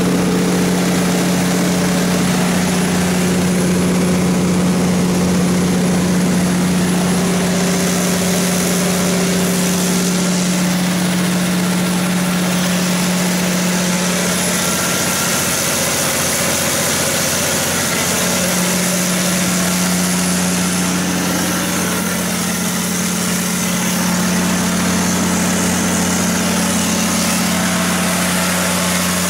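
Cummins NT855-G6 diesel generator set, a 14-litre inline-six, running at constant speed with a steady low hum.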